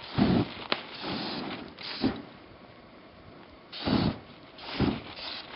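Ether starting fluid sprayed onto snow and burning: four short whooshing flare-ups, with the aerosol can hissing between them and a sharp click just under a second in.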